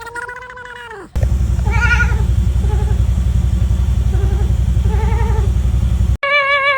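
A domestic cat making strange noises: a meow for about a second, then a loud, low, rapidly pulsing rumble with faint wavering cries over it that stops suddenly after about five seconds, followed by a loud warbling, wavering yowl.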